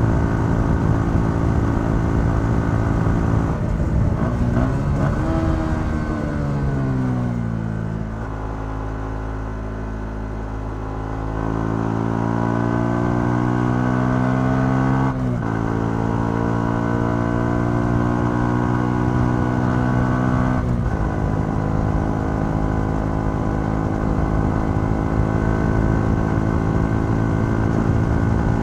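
Yamaha XSR 125's single-cylinder four-stroke engine running through its stock exhaust, heard from the bike. The revs hold steady, rise briefly a few seconds in, then fall away for several seconds as the throttle closes. They climb again under throttle, with two sudden drops in pitch from upshifts about five seconds apart, and it then settles into a steady cruise.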